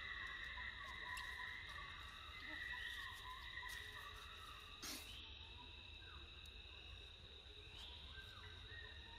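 Faint, steady chorus of insects outdoors: several high, even buzzing tones layered over one another, with a single sharp click about five seconds in.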